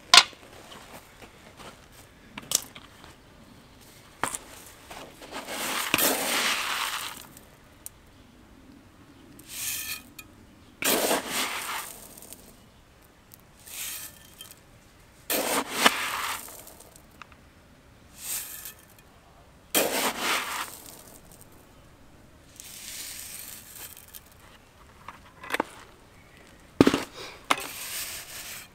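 A small metal trowel scraping and scooping through fine gravel, in strokes of about a second every few seconds.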